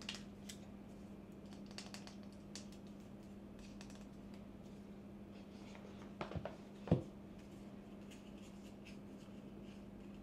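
Hands handling a plastic mains charger and a phone box's cardboard insert: faint scratches and small clicks, then a few quick taps and one louder knock about seven seconds in, over a steady low hum.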